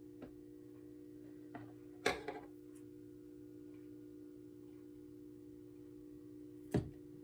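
Faint handling sounds from wires and electrical tape being worked by hand: a few soft clicks, a short crackling rustle about two seconds in and a sharp click near the end, over a steady low hum.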